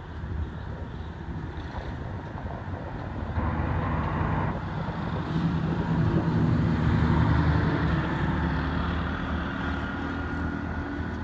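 A motor vehicle's engine running nearby over a low rumble. It grows louder a few seconds in, is loudest in the middle, then eases off.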